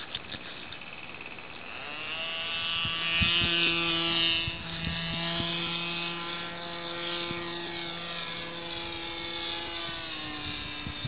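Radio-controlled model aircraft's motor and propeller buzzing overhead, swelling about two seconds in and loudest for a couple of seconds as it passes, then carrying on a little lower.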